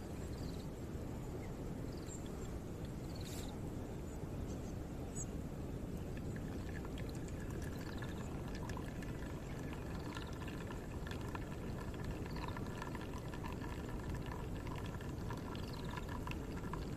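Hot water poured in a thin stream from a kettle onto ground coffee in a paper filter, for hand-drip coffee, starting about six seconds in, over a steady low background.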